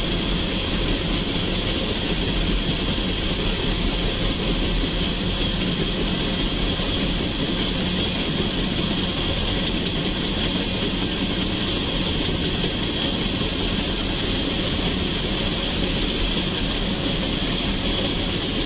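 Tank cars of a freight oil train rolling past steadily: a continuous, even rumble of wheels on rail.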